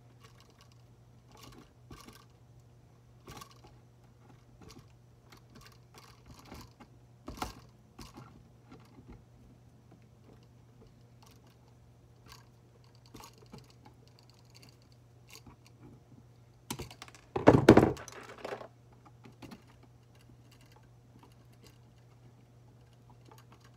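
Lineman's pliers twisting bare copper ground wires together: scattered small clicks and scrapes of metal on metal. Well past halfway there is a louder clatter of tool handling.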